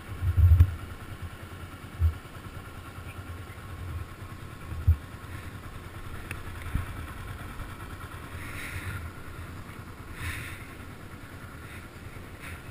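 Yamaha sport motorcycle's engine running as the bike pulls away and rides at low speed, with a few short low thumps, the loudest about half a second in.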